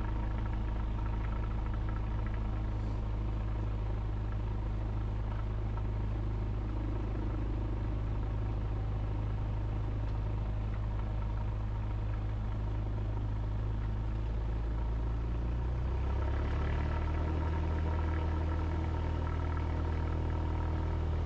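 Cessna 172SP's Lycoming four-cylinder engine running at low power, then throttled up about sixteen seconds in, its note rising and getting a little louder as takeoff power comes in for the takeoff roll.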